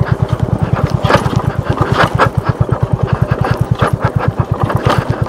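Motorcycle engine running with an even, rapid pulse while being ridden over an unpaved mountain track, with a few sharp clatters from the rough surface about a second in, around two seconds in and near the end.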